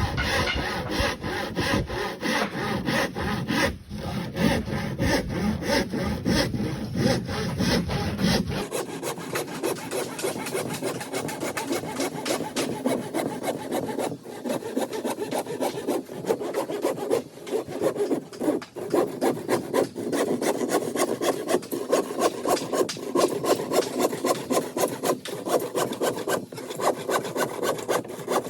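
Hand saw cutting in rapid, steady back-and-forth strokes. About nine seconds in, the deep background drops away while the sawing continues.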